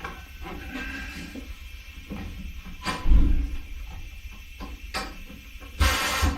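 Scattered knocks and clunks of parts being handled on a workbench, with a heavy thud about three seconds in and a short scraping rush near the end.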